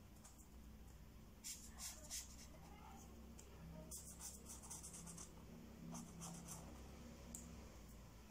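Faint pen strokes on paper while drawing lines: short quick scratches in small groups, about a second and a half in, around four to five seconds, and again near six seconds, over a low steady room hum.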